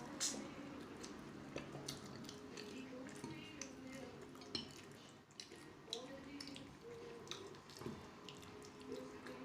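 Faint eating sounds: chewing and mouth smacks with many small sharp clicks scattered through, with now and then a light clink of cutlery or dishes.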